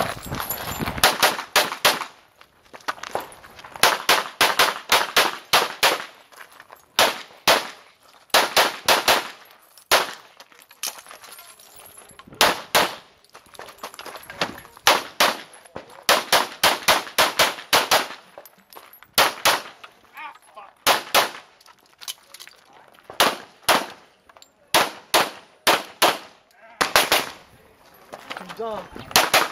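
Pistol fire during a practical shooting stage run: rapid pairs and strings of shots in quick clusters, broken by short pauses of a second or two as the shooter moves between positions.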